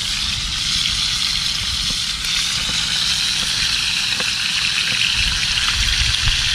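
Whole fish frying in hot oil in a pan over a wood fire: a steady sizzle, with a low rumble underneath.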